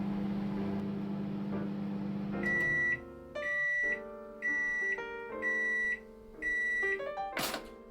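Microwave oven running with a steady hum, which stops about two seconds in; it then gives five high beeps about a second apart to signal that cooking has finished. A sharp click follows near the end.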